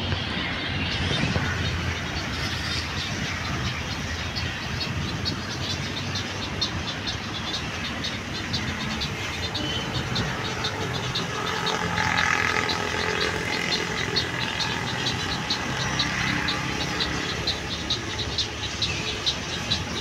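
Steady road traffic noise with a low hum, and a rapid high ticking over it that grows denser in the second half.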